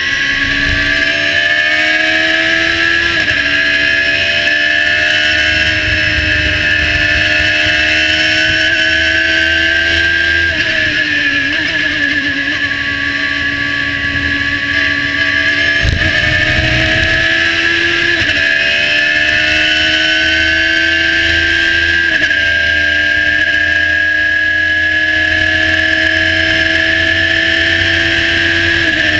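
Radical SR3 1500 race car's motorcycle-derived four-cylinder engine at high revs, heard from the cockpit, pulling hard with quick upshifts: each shift is a sudden drop in pitch before the engine climbs again. About ten seconds in, the pitch falls and wavers as it eases through a corner, then it drives up through the gears again, with a steady high whine and wind noise over it.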